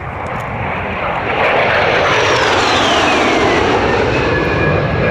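Two Blackburn Buccaneer jets flying past in formation: the jet noise swells to a loud rush a second or so in, with a high whine that falls in pitch as they go by.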